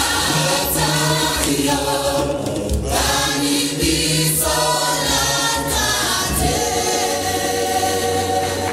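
Gospel music with a choir singing over instrumental backing, settling onto a long held chord over the last couple of seconds.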